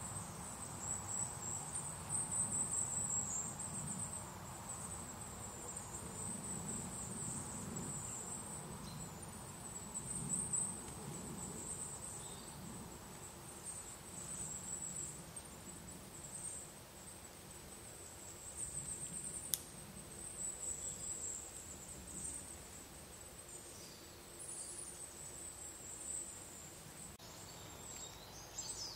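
Woodland ambience: a thin, very high-pitched trilling that wavers almost without a break, over a low outdoor rumble.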